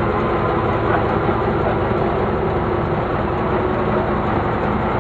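Fire truck's engine running steadily at a slow crawl, heard from its open cab: an even, low engine sound with no change in speed.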